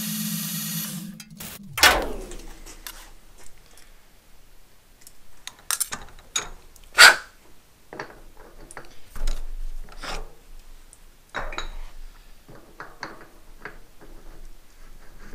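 Metal lathe running with a steady whine, then switched off about a second and a half in, its pitch dropping as it stops. Then scattered metallic clicks and knocks as the chuck and workpiece are handled by hand, the loudest clank about seven seconds in.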